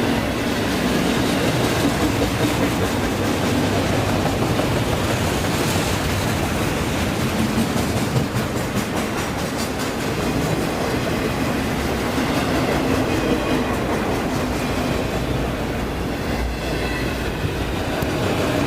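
Freight train rolling past steadily, its wheels clicking over rail joints.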